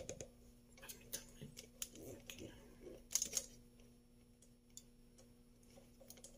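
Faint scattered clicks and taps, with a small cluster about three seconds in, over a steady low hum.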